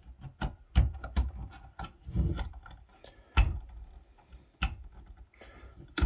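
Small flathead screwdriver prying at the seam of a plastic battery pack case: irregular sharp clicks, scrapes and knocks of the blade and the plastic shell, the loudest about a second in and about three and a half seconds in.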